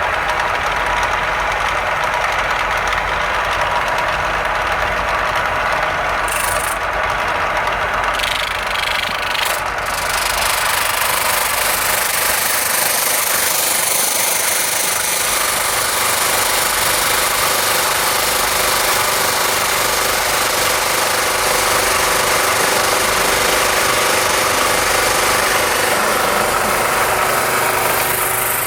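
Automatic electric sanding machine running steadily: a motor hum with a dense abrasive hiss that grows fuller and harsher about a third of the way through.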